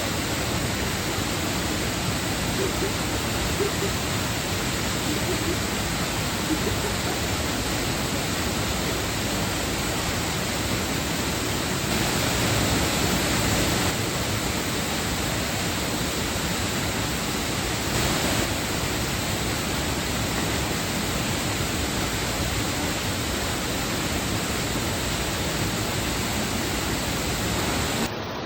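Waterfall: a steady, loud rush of falling water, swelling a little about halfway through.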